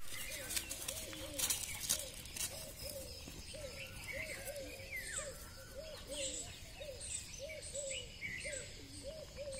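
A bird calling over and over with short, low, arched notes, about two a second, with other birds chirping higher. A few sharp knocks in the first couple of seconds.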